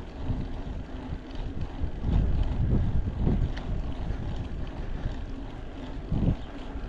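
Wind buffeting the microphone over a low, uneven rumble from a mountain bike rolling over rough trail, swelling in gusts.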